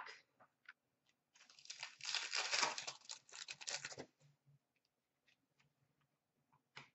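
Wrapper of a 2015-16 Upper Deck Contours hockey card pack being torn open and crinkled by hand for about two and a half seconds, starting about a second and a half in. A few faint ticks and a short click follow near the end.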